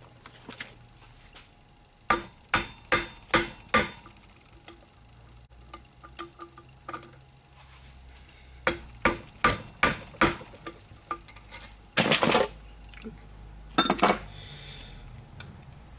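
Metal parts and tools clinking and knocking together during motorcycle front wheel assembly, in quick runs of sharp taps with two longer clattering bursts near the end.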